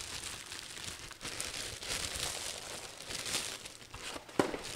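Clear plastic bag crinkling and rustling as a boot is handled and unwrapped from it, with one sharp tap near the end.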